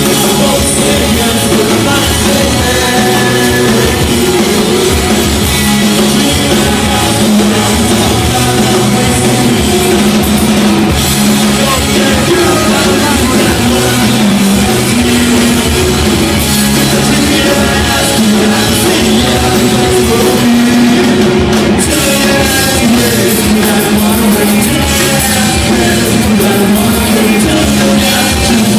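Live rock band playing loud, with drum kit, electric guitar and a singer's vocals.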